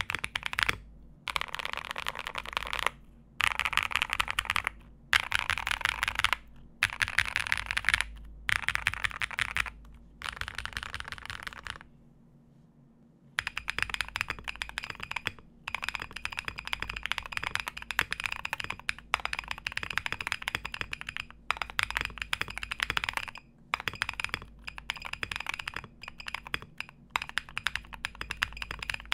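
Typing on a foam-filled MM Studio Class80 R2 mechanical keyboard with Bolsa Laguna Blue switches and dye-sub PBT keycaps. Short bursts of rapid keystrokes with brief pauses for the first dozen seconds, a pause of about a second, then steady continuous typing with the keyboard's buzzer giving a faint high beep along with the keystrokes.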